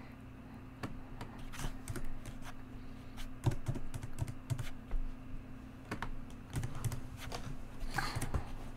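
Typing on a computer keyboard: irregular runs of key clicks while code is being edited, over a low steady hum.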